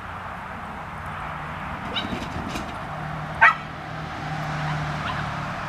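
A small dog gives one short, sharp bark about three and a half seconds in, with a few faint yips shortly before it, over a steady low hum.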